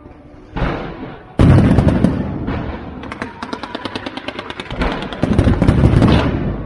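Fireworks: a thump about half a second in, then a loud shell burst, followed by rapid crackling of many small pops and another loud burst near the end.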